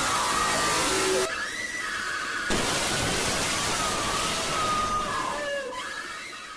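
Loud, distorted horror sound effect: a harsh static-like hiss with wavering, scream-like high wails over it. It jumps louder about two and a half seconds in and fades toward the end.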